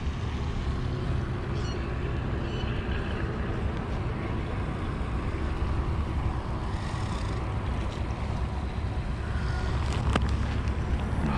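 Wind buffeting the camera microphone: a steady, unsettled low rumble. A single sharp click sounds about ten seconds in.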